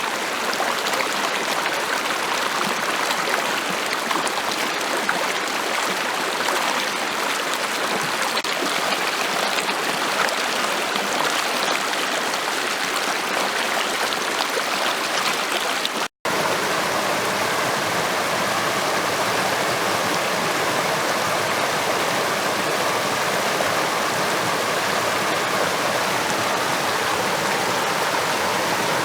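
Stream water rushing steadily, with a momentary dropout to silence about halfway through.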